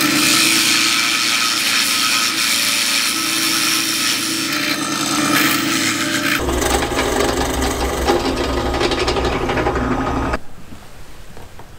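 Bench drill press boring into a laminated plywood block: a wide Forstner bit cuts a flat-bottomed recess, the motor humming under the cutting noise. About six seconds in it changes to a twist bit drilling a small hole, and the drilling stops about ten seconds in.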